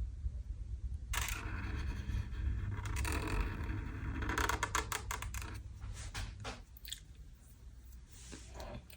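Pen or marker scratching across paper in drawing strokes: a long scratchy stretch, then a quick run of short ticks and strokes that grow fainter, over a steady low hum.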